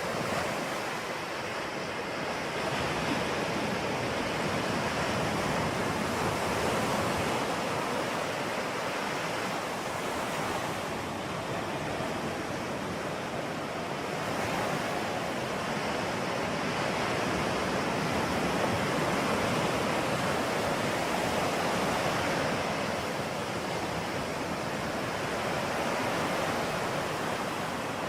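Ocean surf: a continuous wash of breaking waves that swells and eases every several seconds.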